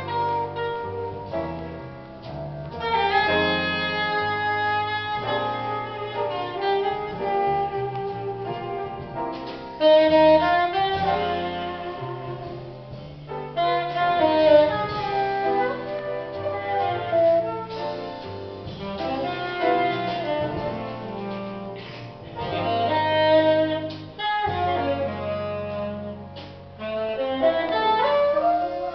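Live small-group jazz: a saxophone plays melodic phrases over grand piano, double bass and drum kit.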